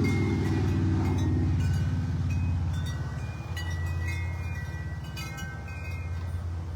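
Wind chimes ringing with light clinks over a steady low engine rumble from a vehicle, the rumble loudest in the first half.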